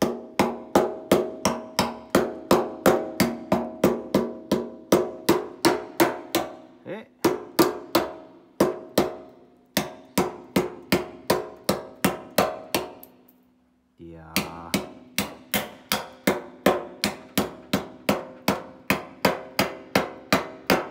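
Small hammer tapping rapidly on a motorcycle's painted metal fuel tank, about three blows a second, each strike ringing through the tank. The blows knock loose paint and the body filler packed over the tank's dents. The tapping stops for about a second two-thirds of the way through, then resumes.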